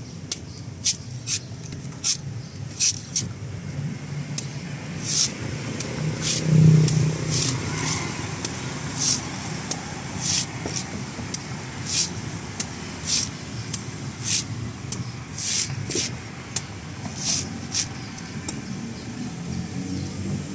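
Heavy cleaver chopping into a green young coconut's husk on a wooden board, sharp strikes at an uneven pace of about one to two a second, as the husk is trimmed away to shape the top.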